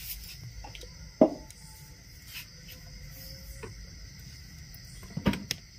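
Crickets trilling steadily in the background, with two light knocks, the louder one near the end.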